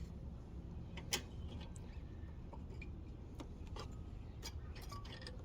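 Scattered small clicks and taps of mower parts being handled and removed during carburetor disassembly, one louder click about a second in, over a low steady hum.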